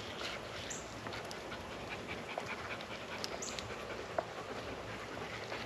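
A dog panting in quick, steady breaths.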